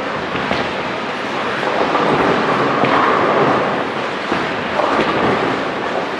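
Bowling centre din from many lanes at once: a steady rumble of bowling balls rolling down the lanes, with scattered pin crashes.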